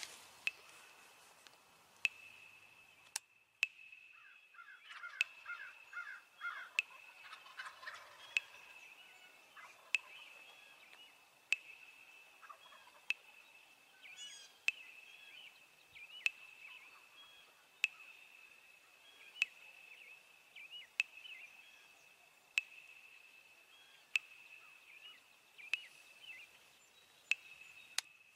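Wild turkeys calling: a run of short, quick notes about five seconds in, with scattered calls later. Under them runs a steady high whine, and a sharp tick comes about every second and a half.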